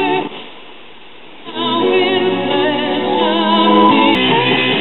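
Music with a singer using wide vibrato, coming from an FM radio broadcast on a Pioneer SX34 tube stereo receiver. The sung line stops about a third of a second in, and after a short lull a new sung passage with accompaniment starts about a second and a half in.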